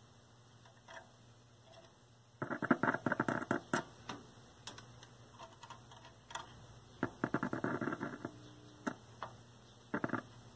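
Bursts of scratchy crackling from the 1932 Aztec cathedral radio's speaker, three spells of them, as a test probe is touched to its circuit. A faint steady hum runs underneath. The crackle is the set showing signs of life.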